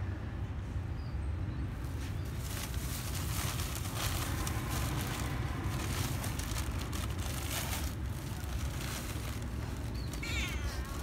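A cat meows once near the end, a short wavering call, over a steady low rumble.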